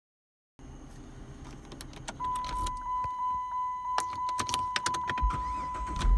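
Inside a 2007 Dodge Charger, a steady high electronic warning tone sounds from about two seconds in. Over it come clicks and key jingling as the key is worked in the ignition, with a low rumble near the end.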